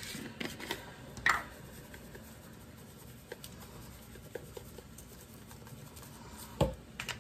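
Light clicks and taps from a seasoning shaker and a paper plate being handled while seasoning is sprinkled over raw chicken breasts. There is a sharp click about a second in and a dull thump near the end.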